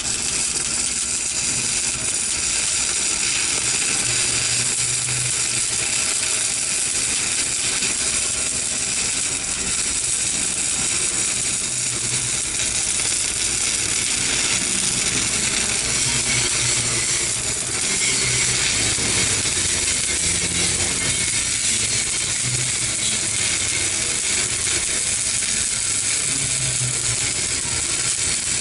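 Stick-welding (shielded metal arc) electrode arc crackling and sizzling steadily as a weld bead is run, without a break.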